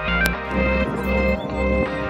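Background music: held chords over a steady bass beat.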